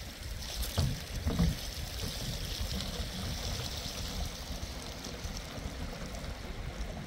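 Water running from an outdoor tap into plastic jerrycans: a steady trickling pour, with a couple of thumps about a second in.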